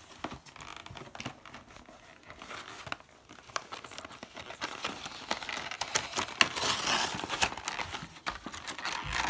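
Cardboard toy packaging being torn and crumpled by hand: a string of crackles and short rips that grows busier and louder in the second half.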